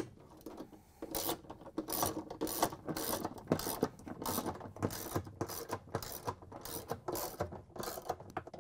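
Hand ratchet wrench with a 10 mm socket on a long extension, clicking through rapid back-and-forth strokes, about three a second, starting about a second in. It is backing out the screws that hold a washer's transmission assembly.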